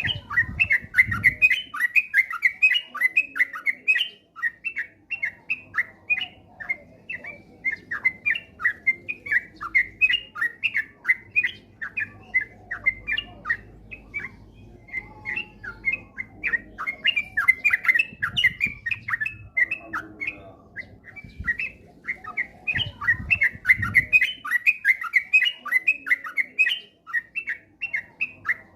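Yellow-vented bulbul (cucak trucuk) song: a fast, unbroken run of short chattering notes, the rapid continuous 'ropel' singing used as a lure recording to set other bulbuls singing.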